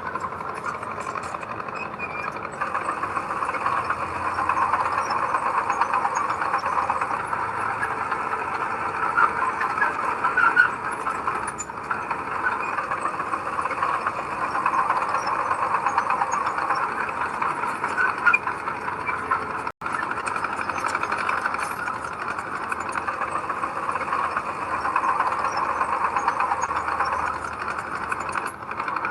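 Heavy earthmoving machine's diesel engine running steadily, its level swelling and easing; the sound cuts out for an instant about two-thirds of the way through.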